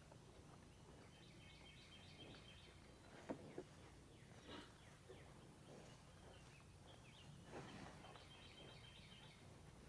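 Quiet pasture ambience with faint, distant birds chirping in short runs, and a couple of soft knocks around the middle.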